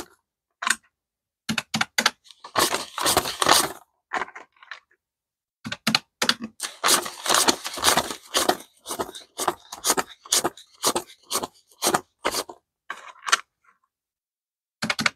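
US paper banknotes rustling and flicking as they are counted by hand, in quick runs of short strokes with brief pauses between.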